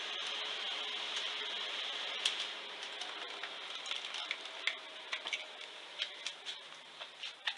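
Mercedes SLK350 vario roof closing: a steady mechanical hiss that slowly fades, with irregular clicks and creaks, among them the right quarter-window glass rubbing on its rubber seal. This grating is a known fault of the car, which the owner puts down to the seal swelling in hot weather.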